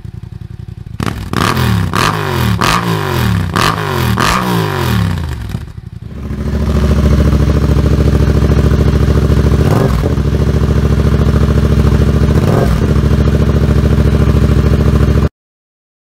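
Yamaha MT-07 parallel-twin engine revved in four quick blips through an aftermarket exhaust. After a cut the engine runs steadily through a Toce exhaust, its note dipping briefly twice.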